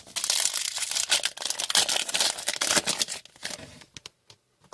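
Trading card pack wrapper being torn open and crinkled for about three and a half seconds, followed by a few faint clicks as the cards are handled.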